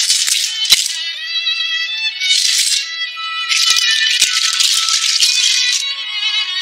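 Background music with high-pitched melodic tones, over bursts of rattling clatter from clam shells being scooped and stirred in water by hand, with a few sharp clicks.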